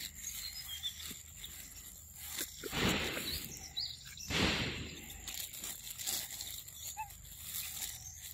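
Outdoor forest ambience: a few faint bird chirps over a steady thin high tone, with two short whooshes of rustling noise about three and four and a half seconds in.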